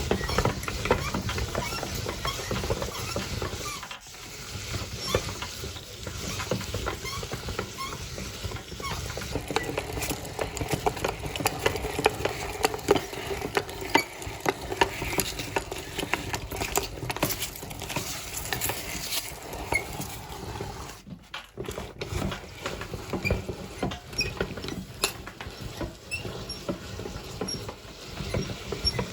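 Meat grinder crushing ice and lemon: a dense, continuous crunching and crackling over a low rumble, which drops off briefly about four seconds in and again for a moment around twenty-one seconds.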